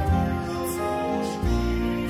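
Song music with long held chords; the bass note changes about halfway through.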